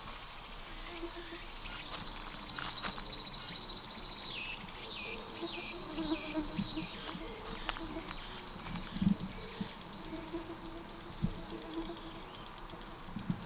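Summer insect chorus: a steady high-pitched buzz, joined in the middle by a second insect's pulsing call that repeatedly dips in pitch.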